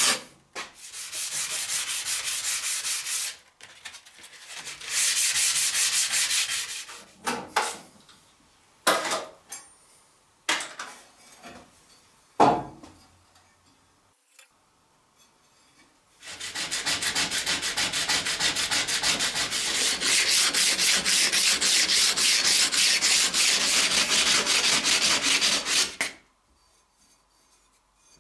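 Abrasive sanding on the steel blade of a cleaver, heard as bursts of rapid rubbing strokes. The longest burst runs about ten seconds near the end, and a few short knocks and clicks fall in a pause in the middle.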